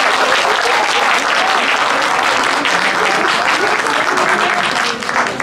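Spectators clapping for a successful conversion kick, with voices calling out among them; the clapping eases off near the end.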